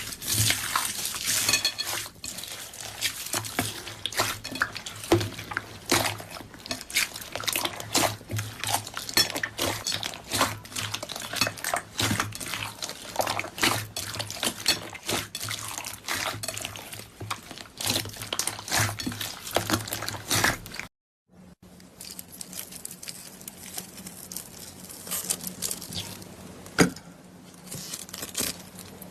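Slime being squeezed and worked by hand, a dense run of wet clicks, pops and crackles. A brief silence about 21 seconds in gives way to sparser clicks over a low steady hum.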